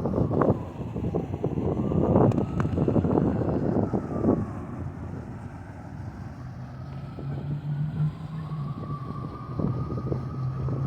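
Wind buffeting the microphone over a distant engine with a faint, steady whine. A low steady engine hum comes in about seven seconds in.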